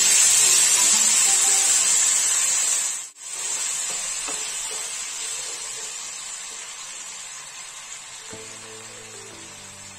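Water poured onto hot mustard oil and fried moong dal in a pan, sizzling loudly. The hiss cuts out for an instant about three seconds in, then carries on and fades steadily as the water heats through. Background music comes in near the end.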